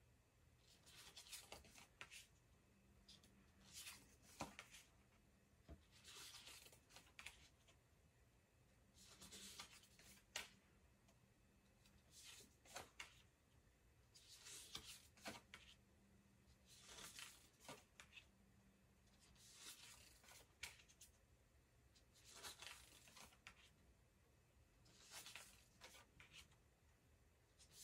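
Tarot cards being turned over one by one and laid on a pile on a wooden table: a faint papery swish, each with a light tap, about every two to three seconds.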